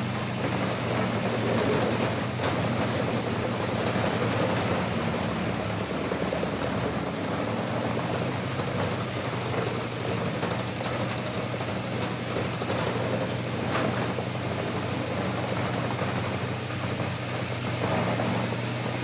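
Bandit Beast Model 3680 wood grinder running steadily under load as it shreds logs: a constant low engine hum under a dense crackling and crunching of wood, with a couple of sharper cracks.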